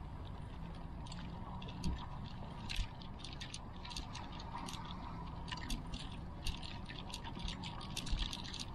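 Irregular light clicks and rattles, several a second, with a couple of louder knocks, over a low steady rumble: the handling and walking noise of a carried action camera.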